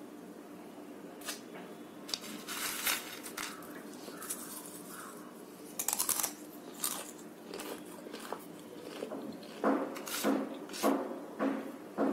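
Close-up chewing of crunchy food: scattered crisp crunches, then a steady run of chewing strokes about one every half second near the end. A faint steady hum runs underneath.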